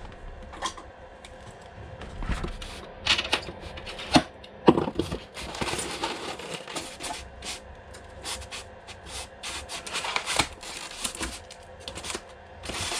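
Unboxing sounds from packaging being handled: irregular rubbing and scraping of styrofoam and cardboard, with scattered clicks and knocks, the sharpest a little after four seconds in.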